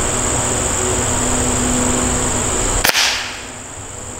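A single sharp crack about three seconds in: a shot from a .25-calibre Hatsan Model 95 spring-piston break-barrel air rifle at a Spam tin. It sounds over a steady background of insects and outdoor hiss.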